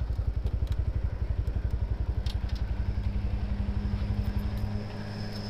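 A motorcycle's single-cylinder engine idling with an even, quick putter of about twelve beats a second, then stopping short about four and a half seconds in as it is switched off after parking. A steady low hum carries on behind it.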